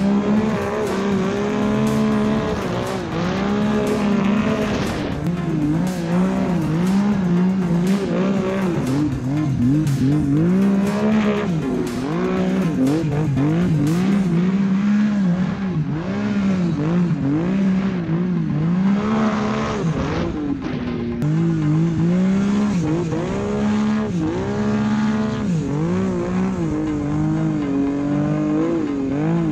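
Arctic Cat King Cat snowmobile's two-stroke engine revving up and down over and over as the throttle is worked, with a string of sharp knocks and jolts through the first half.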